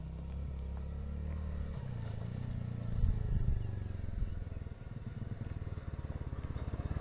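Small motorcycle engine running, its note shifting as the bike rides a rough dirt path, growing louder near the end as it comes closer.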